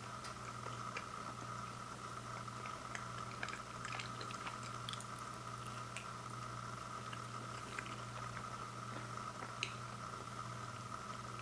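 Someone chewing and biting pizza: small wet clicks and smacks scattered over a steady background hum.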